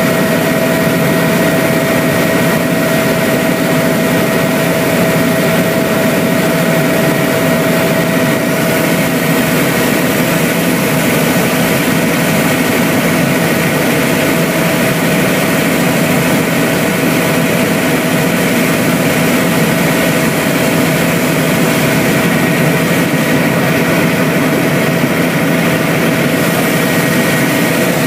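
Helicopter in steady cruising flight, heard from inside the cabin: continuous, loud engine and rotor noise with a steady whine running through it.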